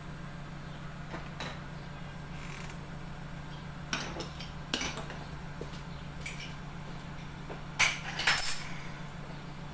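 Pots and utensils being handled, with a few sharp metal knocks about four and five seconds in and a louder clatter near the end, over a steady low hum.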